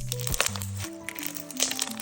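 Crunchy slime crackling and popping in quick irregular clicks as it is squeezed, over background music with held notes.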